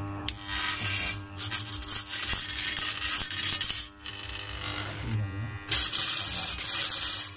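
Hacksaw blade buzzing and rattling on a jigsaw armature that sits in a growler, in several stretches of a second or two, over the growler's steady mains hum. A vibrating blade on a growler is the sign of a shorted armature, which is what the repairer finds in this one.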